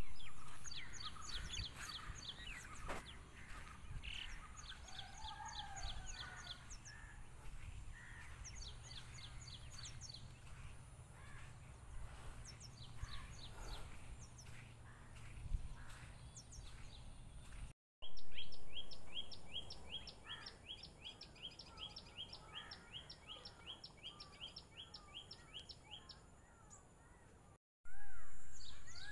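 Small birds calling in trees, repeating quick series of high, down-slurred notes over a low steady rumble. In the second half one bird keeps up an even series of about five notes a second for several seconds. The sound drops out briefly twice.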